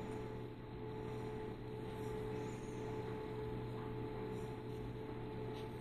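A steady low hum with a faint held tone over it; no distinct event stands out.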